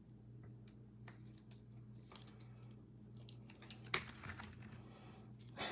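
Faint rustling and soft clicks of trading cards and foil pack wrappers being handled, with a slightly louder click and rustle about four seconds in. A steady low hum runs underneath.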